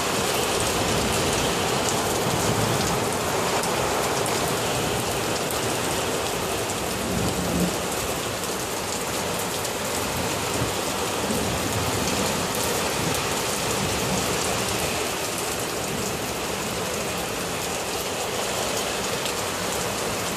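Rain falling steadily in a thunderstorm, a constant even hiss of drops on surfaces.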